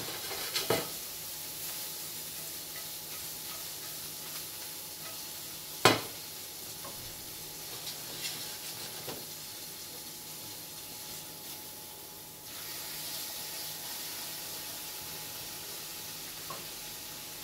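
Sliced mushrooms and sage sizzling in butter and oil in a stainless steel frying pan while being stirred, a steady frying hiss that grows a little louder about two-thirds of the way through. A few clinks of the metal utensil against the pan, the sharpest about six seconds in.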